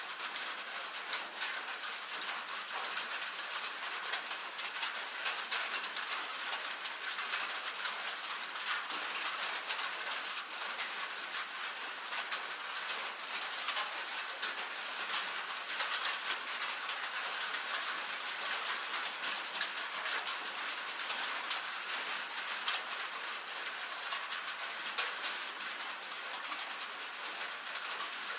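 Light rain falling on a metal roof: a steady, dense spread of small, sharp drop ticks.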